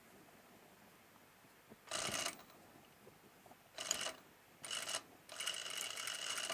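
Sewing machine running in four short bursts, the last one the longest. It takes a few stitches at a time, as when working around a sharp curve.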